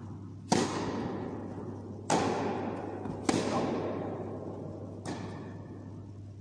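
Tennis ball impacts during a rally on an indoor carpet court: four sharp hits of racket and bounce, a second or two apart, each ringing out in the hall's echo.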